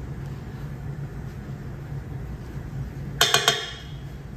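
A kitchen utensil striking a mixing bowl of cake batter: a quick cluster of three or four ringing clinks about three seconds in, over a low steady hum.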